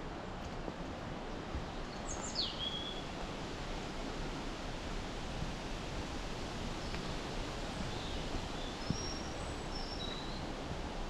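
Steady outdoor rushing noise with small birds calling over it: one quick falling call a little over two seconds in, then several short high chirps near the end.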